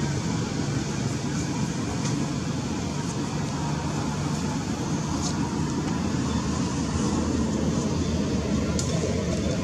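Steady low rumbling background noise, with two brief faint high-pitched sounds about five and nine seconds in.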